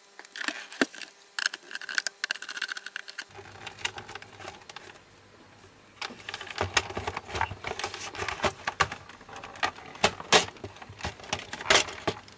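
Sanyo PLC-SE20A projector's plastic case being worked apart by hand: scattered clicks and knocks, then from about halfway a dense run of clicks, knocks and rattles as the top cover is pried loose and lifted off.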